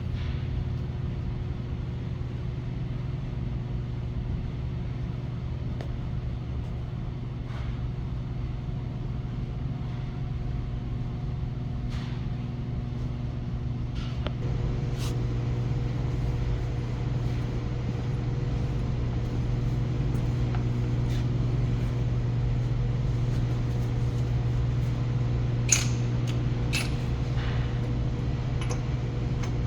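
A motor running steadily with a low hum. There are a few sharp clicks partway through and a louder cluster of clicks near the end.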